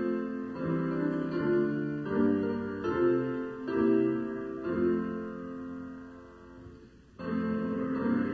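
Piano playing the introduction to a hymn in slow chords. A held chord fades away about seven seconds in, and the next phrase starts just after.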